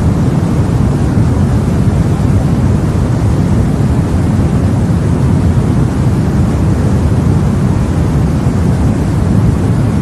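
Steady, deep white noise played as a sleep sound, weighted toward the low end like a dull rumble, with no change in level or character.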